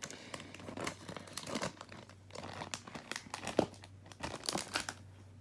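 A plastic packaging wrapper being torn open and crinkled by hand, in irregular crackles that stop shortly before the end.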